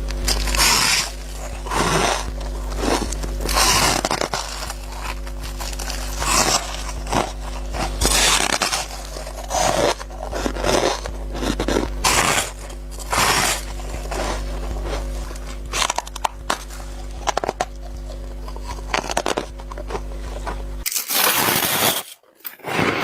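Freezer-frost ice being bitten and chewed close to the microphone: repeated irregular crunches and scrapes, one every half second to a second. A steady low hum runs underneath and cuts off near the end.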